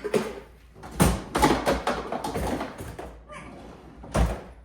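Several sharp knocks and bangs with clattering between them, one about a second in, two more close after it, and another near the end, with a voice in the mix.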